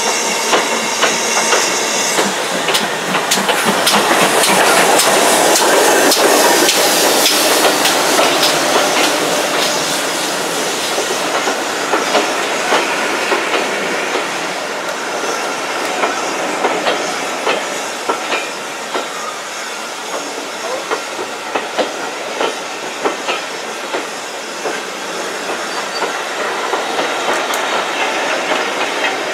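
BR Standard Class 4 4-6-0 steam locomotive No. 75069 pulling away, steam hissing from its cylinders, loudest a few seconds in. Its coaches then roll past, wheels clicking on the rails.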